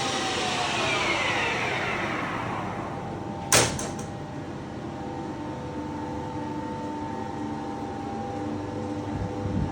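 Colchester Triumph 2000 lathe's geared headstock running down after switch-off, its whine falling in pitch over the first three seconds, then a single sharp clunk about three and a half seconds in. A faint steady hum remains afterwards.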